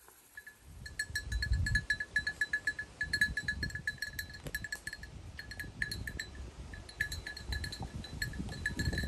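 Livestock bells clinking quickly and irregularly at one bright pitch, over a low rumble.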